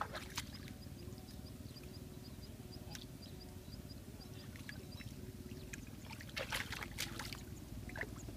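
Hands sloshing and splashing in shallow muddy water while feeling through the mud for fish, with a cluster of louder splashes about six and a half to seven seconds in.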